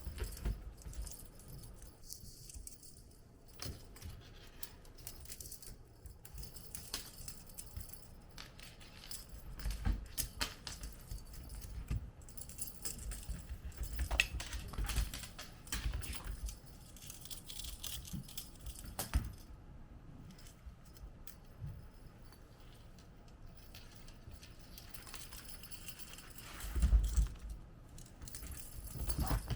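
Kittens playing with toys: irregular jingling and rattling with scattered light taps, and a few dull thumps, the loudest about 27 seconds in.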